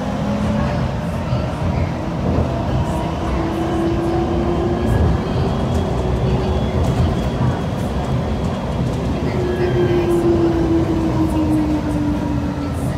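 Heard inside the car of a DFW Skylink automated people-mover train running between stations: a steady rumble of the ride with a motor whine that rises and falls in pitch as it speeds up and slows.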